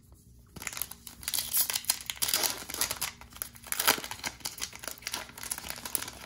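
A Topps baseball card pack's foil-lined wrapper being torn open by hand, crinkling and crackling. It starts about half a second in.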